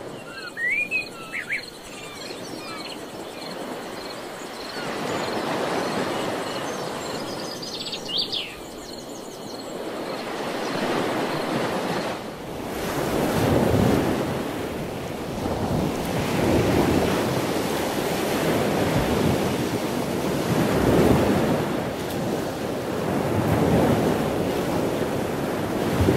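Ocean surf on the shore, the wash of the waves swelling and fading every few seconds and louder in the second half. A few short high chirps come near the start and about eight seconds in.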